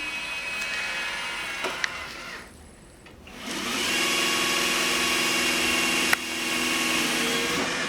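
Roomba i7+ robot vacuum starting a cleaning run: its motor and brushes run, drop away briefly about two and a half seconds in, then come back louder as a steady whir with a hum. A sharp click comes about six seconds in.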